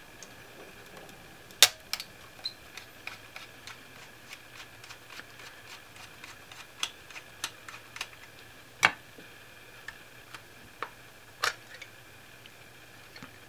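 A small flathead screwdriver turning the screw of a plastic battery door on a clamp-on current probe's housing, making irregular light clicks and ticks. A few sharper clicks stand out: the loudest comes about two seconds in, with others near nine and eleven seconds. Near the end the battery door comes free.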